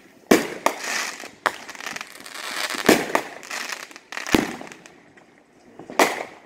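Aerial fireworks shells bursting overhead: a run of about seven sharp bangs at uneven gaps, each followed by crackling as the stars spread, with a short lull before a last bang near the end.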